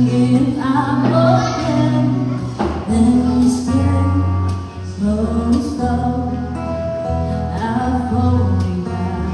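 Live acoustic performance: a vocalist singing a song into a microphone, accompanied by an acoustic guitar.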